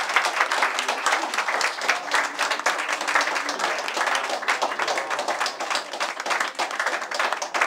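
A small group of people applauding, with many separate hand claps heard in a dense, steady run.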